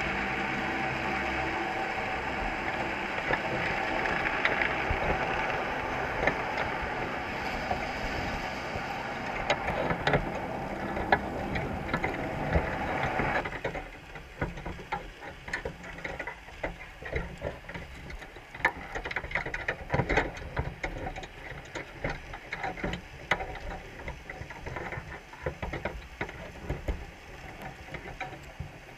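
Underwater sound inside a crab trap: irregular clicks, crackles and scrapes as Dungeness crabs clamber over the wire mesh, the bait bag and each other. A steady drone lies under the clicking and stops abruptly about halfway through, after which the clicks stand out more clearly.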